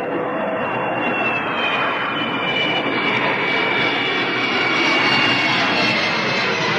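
Jet airliner noise heard inside the cabin: a steady roar of rushing air with a high whine that slowly falls in pitch.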